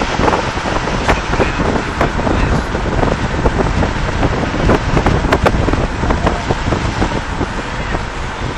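Road noise from a moving vehicle, with wind buffeting the microphone and frequent short knocks and rattles.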